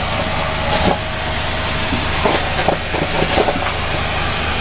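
Sonifer vacuum cleaner running, a steady motor hum and rush of air, with short crackles and rattles in the middle as dirt is sucked in.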